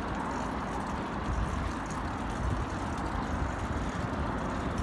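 Mountain bike rolling along a concrete path: a steady rumbling noise of knobby tyres on concrete mixed with air rushing past the microphone.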